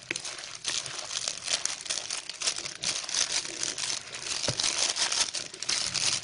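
Plastic sachet of rice flour crinkling and crackling continuously as hands squeeze and work it open to empty the flour into a bowl.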